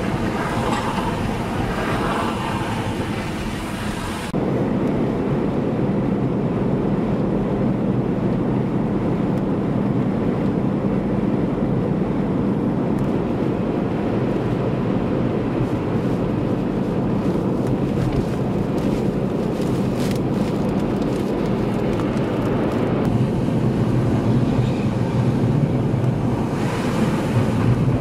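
Steady traffic noise of trucks on a slushy, snowy highway: tyre and road noise with engine rumble, and wind. About four seconds in the sound cuts abruptly to a deeper, steadier rumble.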